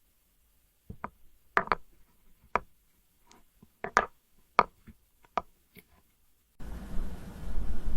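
A knife tapping and clicking sharply against glass, about a dozen irregular taps, then a continuous gritty scraping starting near the end as the blade saws through the glass.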